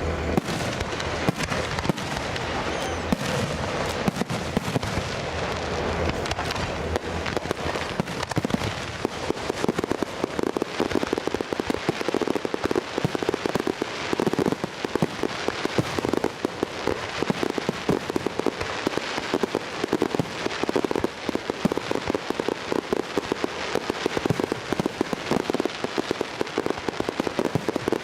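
Fireworks crackling: a dense, continuous run of rapid sharp pops and crackles, thickening about a third of the way in.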